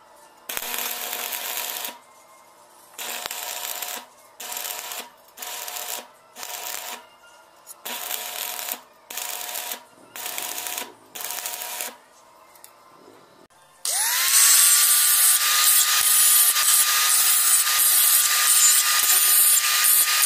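Stick (arc) welding: about eight short bursts of arc crackle as tack welds are struck one after another. About 14 seconds in, an AEG angle grinder starts with a quick rising whine and runs on loudly at a steady high pitch.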